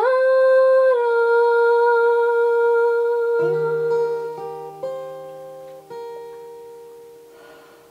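A woman's voice holds one long sung note, stepping down slightly about a second in. Acoustic guitar notes are then picked a few at a time and left to ring, fading away toward the end.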